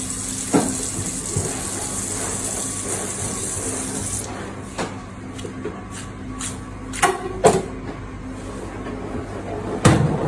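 Water running from a tap into a steel sink, stopping suddenly about four seconds in, then a few sharp knocks and clicks as a filleting knife and a large fish are handled on the cutting board and steel counter, over a steady low hum.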